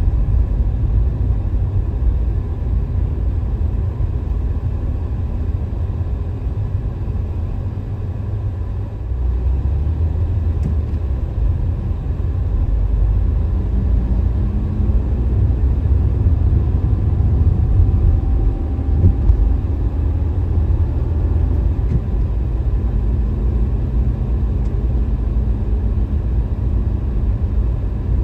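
Car driving through city traffic: a steady low rumble of engine and tyre noise, easing a little then building again partway through.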